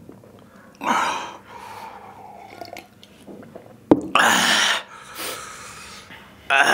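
A man blowing hard breaths out through his open mouth in three loud breathy gusts, reacting to the burning heat of very spicy noodles. A sharp click comes just before the second gust.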